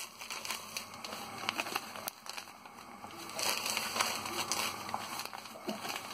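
Pasta water boiling in an enamel pot of vermicelli on a gas stove: a steady crackling bubble with scattered small clicks. There are a few short knocks and rustles of handling, louder about three and a half seconds in.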